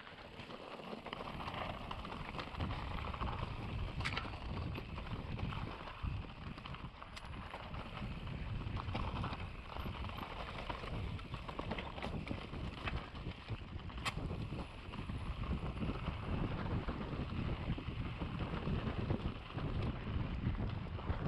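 Mountain bike descending a rough trail: tyres rolling over dirt and stones, the bike clattering with scattered knocks, and wind buffeting the camera's microphone.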